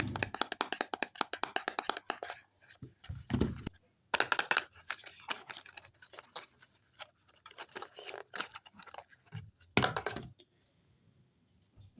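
Lipstick tubes being opened and handled: runs of rapid small plastic clicks and scrapes as caps come off and bases are twisted, in bursts with pauses, and one louder click burst near the end.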